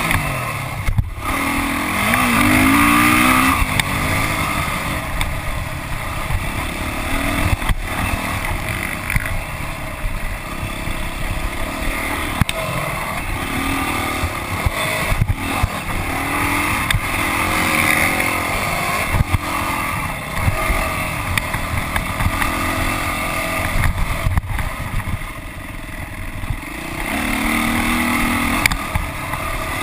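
Motocross dirt bike engine racing hard, its pitch rising and falling again and again as the rider opens and closes the throttle through the track's corners and jumps. It is heard close up from the handlebars, loud throughout.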